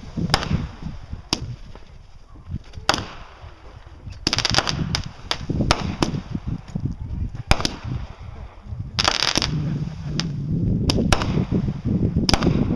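Aerial fireworks going off: a series of sharp bangs, with runs of rapid reports about four seconds in and again near nine seconds.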